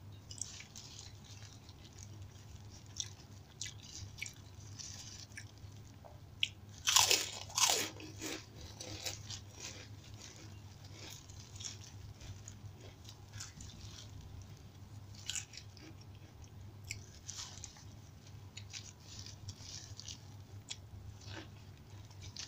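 Close-up eating sounds: chewing and crunching of crisp fried food and rice eaten by hand, as short crackles throughout, with a few loud crunches about seven seconds in.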